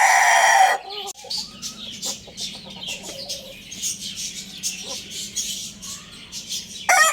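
Young rooster crowing: the held last note of one crow cuts off just under a second in. Then come a few seconds of soft scattered clucks and chirps, and a new crow starts near the end.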